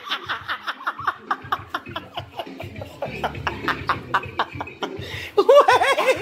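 People laughing hard in rapid breathy pulses, about five or six a second, turning into louder voiced laughter near the end.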